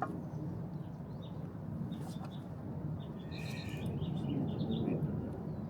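A small bird chirping in a quick run of short high notes about three seconds in, over a steady low hum.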